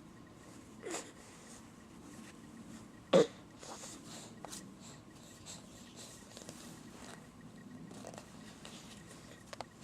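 Two short squealing calls from a pet, each falling in pitch, about a second in and about three seconds in, the second much louder, with faint rustling between.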